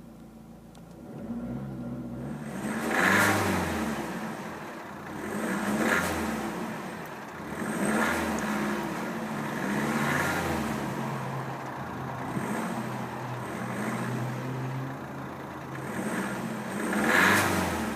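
2013 Vauxhall Zafira's engine heard at the exhaust tailpipe, idling and revved five times, the first about three seconds in and the last near the end, each rev rising and falling back to idle.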